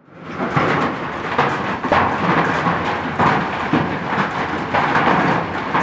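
Heavy hailstorm with rain: a dense, loud clatter of many hailstones striking the ground and surrounding surfaces.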